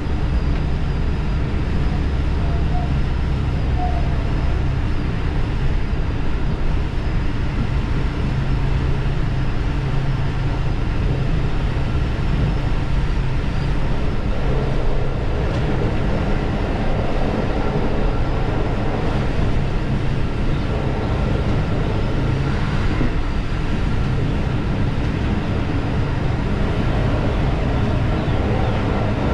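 Diesel railcar running along the line, heard from aboard: a steady low engine drone over the rumble of wheels on rails.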